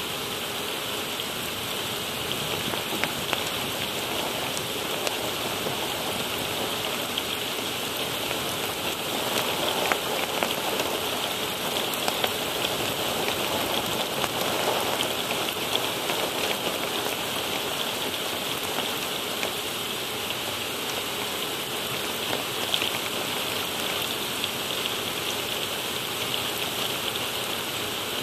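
Heavy rain pouring down steadily, with many sharp ticks of single drops striking close by.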